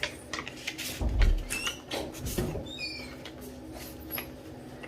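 A greeting card being handled and pried at: scattered clicks and rustles, a dull bump about a second in, and a few short squeaky chirps near the middle.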